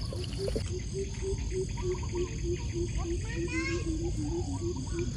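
An animal calling in a steady run of short, low notes, about three a second, with faint bird chirps above it.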